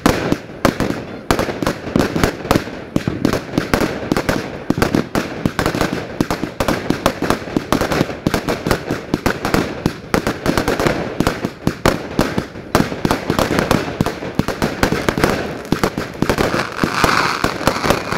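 Fireworks display in a dense, rapid barrage: many sharp bangs and crackles a second, going on without a break.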